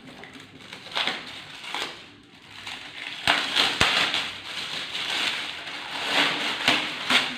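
Packaging crinkling and rustling as an item is unwrapped and handled, growing denser about three seconds in, with a few sharp knocks.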